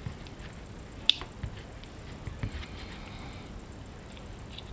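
Small clicks and handling noises from a KJW KC-02 airsoft trigger mechanism being worked by hand during reassembly, one sharp click about a second in the loudest.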